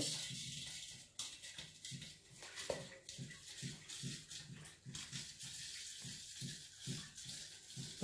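Water, vinegar and baking soda mixture sloshing in a stainless steel pot as it is stirred with a spoon, in a steady rhythm of a little over two strokes a second, with faint clicks of the spoon against the pot.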